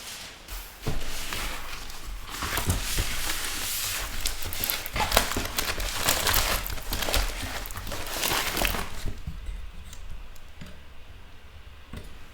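Packaging crinkling and rustling as a rolled diamond painting canvas is unwrapped by hand, in dense bursts that ease off about nine seconds in.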